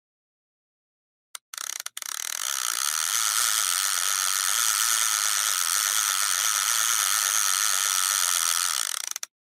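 Fishing reel's ratchet clicking, a couple of single clicks and then a fast, steady run of clicks that lasts several seconds and stops shortly before the end.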